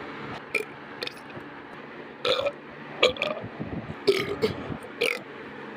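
A person burping repeatedly: about half a dozen short burps at irregular intervals, a couple of them a little longer.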